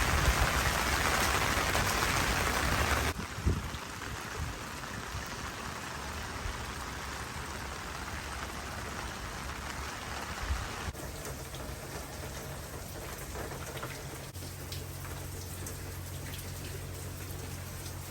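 Steady rain falling, an even hiss of drops. It is louder for the first three seconds, then drops suddenly, with a couple of faint knocks later on.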